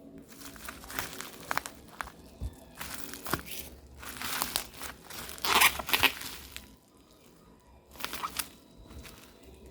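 Packaging being handled and opened: irregular crinkling and rustling with tearing sounds. The loudest burst comes about halfway through, followed by a short lull before more crinkling.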